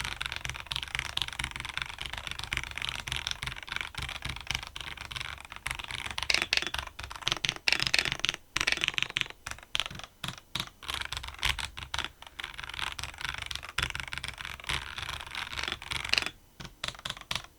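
Royal Kludge RK-H81 gasket-mounted mechanical keyboard being typed on quickly and continuously: a dense run of keystroke clacks with a few brief pauses.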